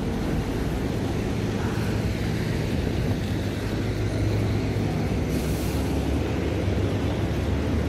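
Busy city road traffic heard from a bicycle: a steady drone of nearby buses, jeepneys and cars with road and wind noise, and a brief hiss about five and a half seconds in.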